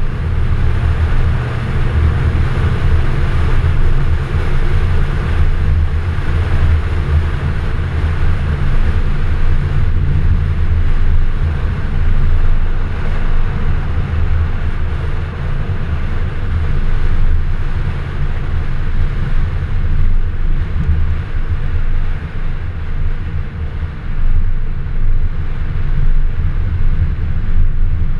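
Ford FPV GS ute's V8 engine running steadily as the ute cruises along a dirt road, a deep low hum with road and wind noise buffeting the outside-mounted microphone.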